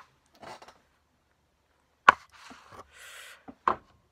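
Handling noises: two sharp knocks about a second and a half apart, the first the louder, with soft rustling between them.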